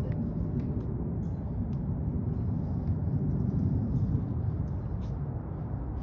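Steady low outdoor rumble, with a few faint ticks.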